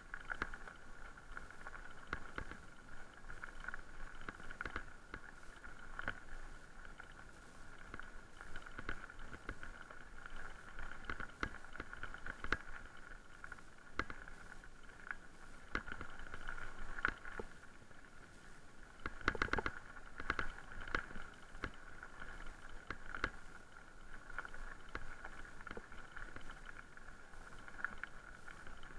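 Electric mountain bike rolling over a gravel track, heard from the handlebars: the tyres crunch on loose stones and the bike rattles with frequent small knocks, over a steady whine. A cluster of louder knocks comes about two-thirds of the way through.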